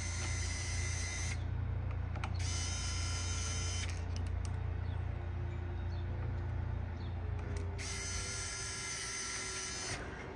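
Small cordless electric screwdriver running, backing out bolts from the bike's handlebar clamp; its steady motor hum carries a higher whine that comes and goes three times.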